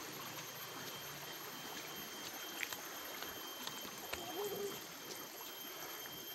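Water running steadily in a small rice-field irrigation channel, with a brief faint voice about four seconds in.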